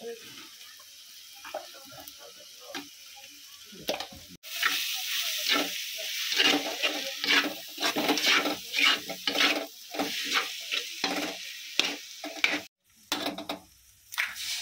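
A spatula stirring and scraping shredded vegetables frying in a hot metal wok, with a sizzle underneath. The scraping strokes get loud about four seconds in and come about two a second.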